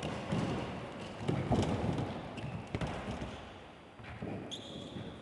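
Football kicked and thudding on a wooden sports-hall floor several times, with players' footsteps; a high squeak comes in near the end.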